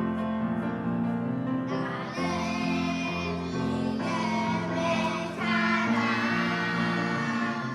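Children's choir singing a hymn with piano accompaniment. The piano plays alone at first, and the children's voices come in about two seconds in.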